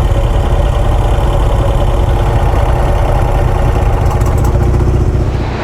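Motorcycle engine idling steadily, which stops suddenly near the end.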